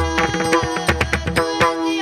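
Varkari bhajan music: a devotional singing voice over a steady held drone note, with hand-drum strokes and sharp percussion keeping a quick, even beat.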